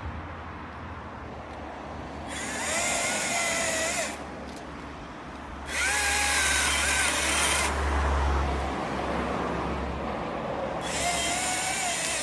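Echo chainsaw run in three separate bursts of about one and a half to two seconds each, a whining motor pitch over loud noise, stopping in between.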